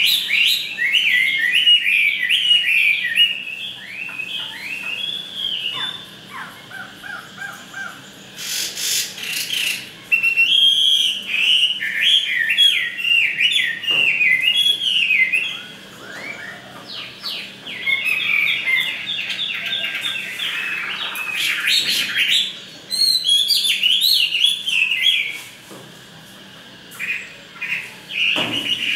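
Chinese hwamei singing loud, fast runs of whistled, sweeping notes in long phrases with short pauses between them.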